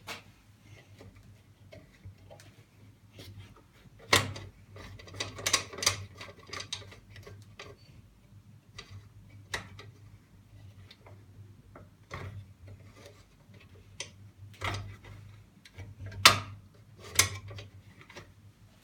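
Scroll saw running with a round chainsaw file clamped in place of its blade: a low steady hum with light ticking, broken by scattered louder clicks and scrapes as the file meets the work.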